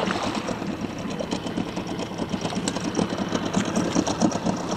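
Fishing reel being cranked in fast, a quick run of clicks over a steady whirr, as a hooked giant snakehead is drawn to the landing net. The fish splashes at the surface.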